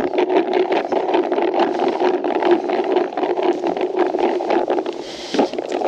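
Baits rattling as they are shaken in a container to coat them with booster liquid, a dense run of clicks over a steady background drone.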